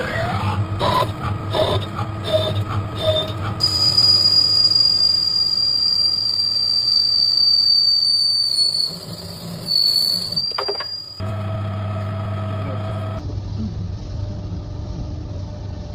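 CNC machine cutting metal, with a steady high-pitched whine from the cutter and spindle that starts a few seconds in and lasts about seven seconds. The machine sound changes abruptly several times.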